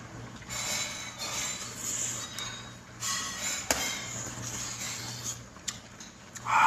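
Tableware being handled during a meal: scraping and rustling, with one sharp clink about three and a half seconds in.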